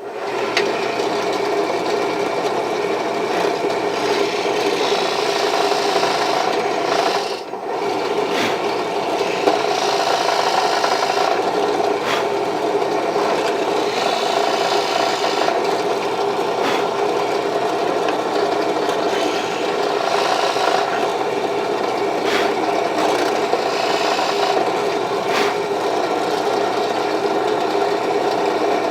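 Electric drill running steadily as its bit bores into the wooden sword handle, a motor whine under the scraping of the bit cutting wood. The sound dips briefly about seven seconds in, then carries on.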